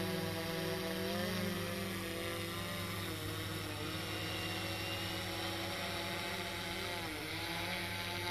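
Steady hum of small electric propellers spinning, with the pitch dipping briefly about a second in and again near the end.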